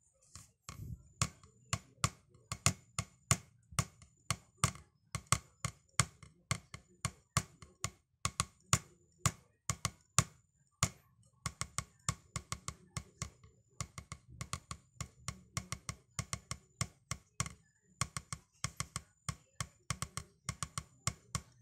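Wooden 7A drumsticks tapping on a rubber drum practice pad in a steady practice pattern: crisp single taps, about three a second, picking up to quicker strokes after a brief pause about halfway through.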